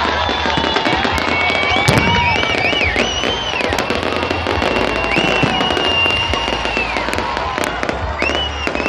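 Fireworks bursting overhead: a dense, continuous run of bangs and crackles, with high whistles that rise, hold for a second or so and fall away sounding through it.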